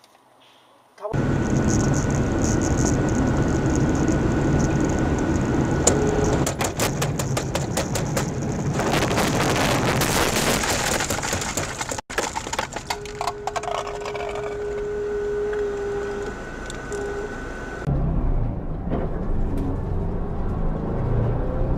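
Road and engine noise inside a moving car, heard through a dashcam. Dense crackling and clicking runs through the middle, and a steady tone is held for about three seconds in the second half.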